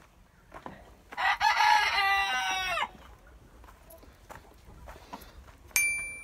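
A rooster crows once, a loud call of nearly two seconds starting about a second in and dropping in pitch at its end. Near the end comes a sharp click and a short ringing chime from a subscribe-button sound effect.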